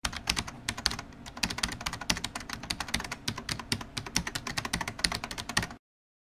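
Computer keyboard typing sound effect: a fast run of key clicks that stops suddenly near the end.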